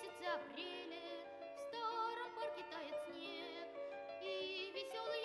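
Background music: a song with a singing voice, wavering with vibrato, over held instrumental notes.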